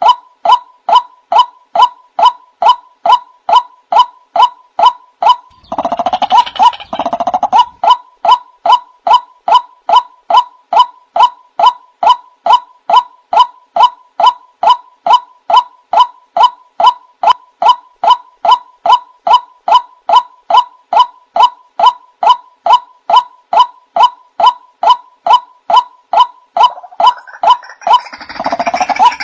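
Male white-breasted waterhen calling a long, even run of loud 'kwak' notes, about two to three a second. A rougher, gurgling burst breaks in about six seconds in and again near the end.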